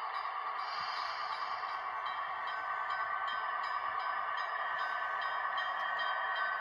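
Onboard sound of Rapido HO scale FP7 locomotives: diesel engine sound played through their small speakers, steady and thin with no deep bass. Faint regular ticking runs through it, and a ringing tone joins about two and a half seconds in.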